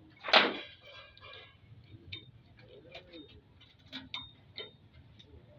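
Metal engine parts or hand tools handled on a workbench: a loud clank with a short metallic ring about half a second in, then several light clicks and taps.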